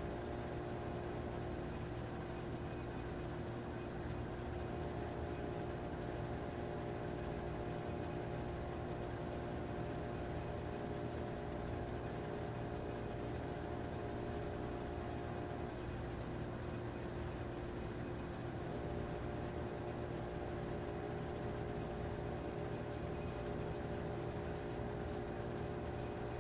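Steady machine hum with several held tones over a low rumble; two of the higher tones drop out for about three seconds a little past the middle, then return.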